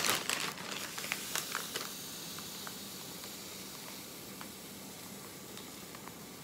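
Granulated sugar pouring from a plastic packet into a glass measuring cup: the packet rustles and grains tick against the glass in the first two seconds, then a steady soft hiss of sugar streaming in.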